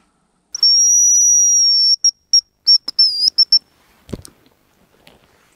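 Hazel grouse decoy whistle blown close by: one long, high, thin whistle lasting over a second, then a string of five or six short notes with a wavering trill among them, copying the hazel grouse's call. A single dull thump follows about four seconds in.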